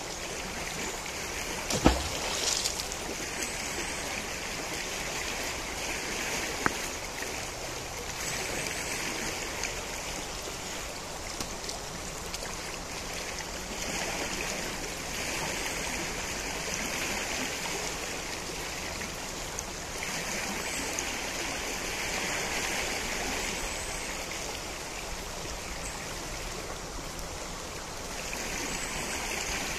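Najerilla river flowing: a steady rush of water that swells and eases every few seconds. A single sharp knock about two seconds in, and a faint click a few seconds later.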